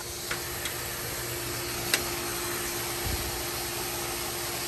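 Pool filter pump running: a steady motor hum with a rushing whoosh, growing a little louder toward the end. One sharp click about two seconds in.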